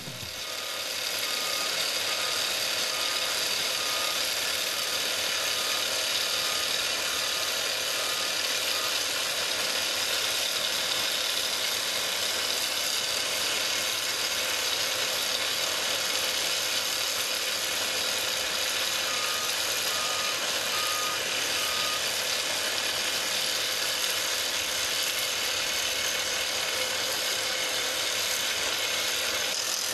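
Hydraulic top-hammer rock drill of a SOOSAN STD11 crawler rig hammering steadily into rock while drilling a blast hole: a dense, even mechanical clatter with no breaks.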